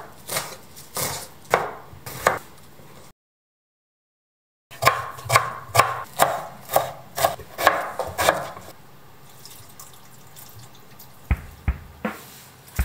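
Kitchen knife chopping greens on a wooden cutting board, steady strokes about two a second with a pause partway through. Near the end, a few sharp clinks.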